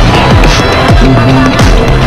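Loud dance music from a DJ sound system: a deep kick drum that drops in pitch, about two beats a second, under held synth tones.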